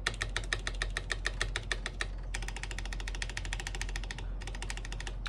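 Rapid clicking of keys on a mechanical keyboard, including the stabilized spacebar, which clacks cleanly without the rattle of a bent stabilizer wire. The clicking stops briefly about two seconds in and again about four seconds in.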